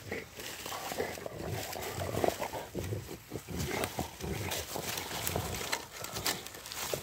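Rottweilers play-growling at close range while tussling over a stick, with twigs and dry leaves crackling under their feet.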